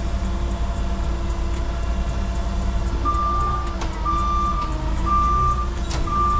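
Forklift warning beeper sounding a steady single-pitched beep about once a second, starting about halfway in, over a steady low engine hum.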